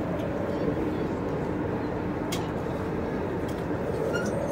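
Steady murmur of a stadium crowd waiting, a low hum of many distant voices and movement.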